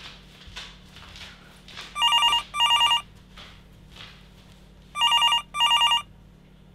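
Mobile phone ringing with a double-ring telephone tone: two rings about three seconds apart, each a pair of short trilling bursts. It is an incoming call.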